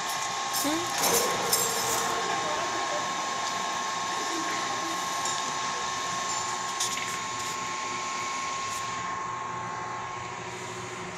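Machine-shop machinery running, a metal lathe with a large fan nearby, making a steady whir with a steady hum. A few light clicks come about a second in, and the high hiss drops off about nine seconds in.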